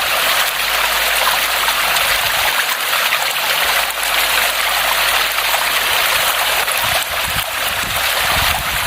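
A steady rushing noise like running or pouring water, starting and stopping abruptly.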